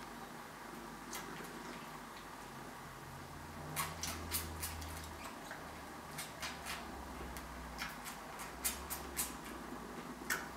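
Three kittens suckling at a Somali mother cat, their nursing making soft irregular clicking smacks, with a low purring rumble from the mother that starts about three seconds in.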